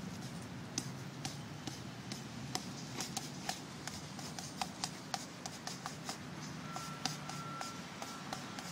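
Bare fists, forearms and hands striking a tree trunk in a quick irregular series of short sharp knocks, several a second, over a steady low rumble of background traffic.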